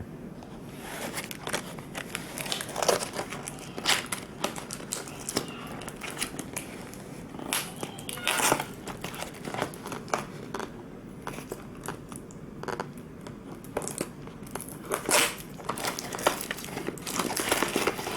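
Tripod packaging being unboxed by hand: irregular crinkling and rustling with sharper crackles now and then.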